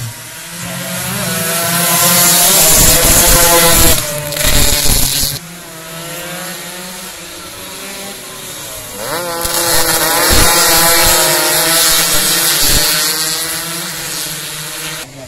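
A pack of two-stroke 150 cc race motorcycles at full throttle passing close by, several engines buzzing at once with their pitch rising and falling. The first burst cuts off suddenly about five seconds in. A second pack builds up a few seconds later and fades near the end.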